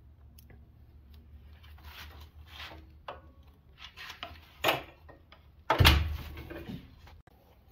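Handling noises from a chop saw and its coiled power cord: rustles and light knocks, then one loud thump with a short ring-out about six seconds in, over a low steady hum. The saw's motor is not running.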